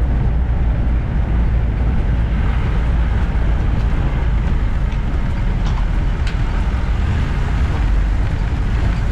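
Steady, loud noise of a motor vehicle on the move, with a heavy low rumble.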